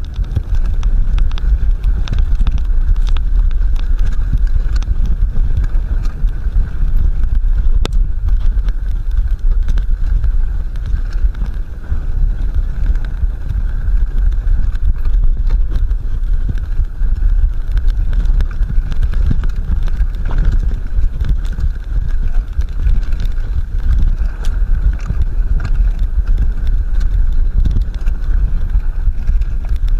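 A fatbike rolling fast down a snowy trail: a constant low rumble of wind on the camera's microphone and of the fat tyres and frame over the snow, with scattered clicks and knocks from bumps.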